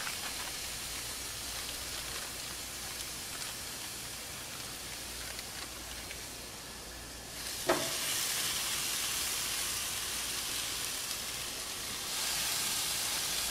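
Marinated blacktip shark steaks sizzling on a hot gas grill grate. The sizzle gets louder about halfway through and again near the end as more steaks are laid on, with one brief sharp squeak just before the first rise.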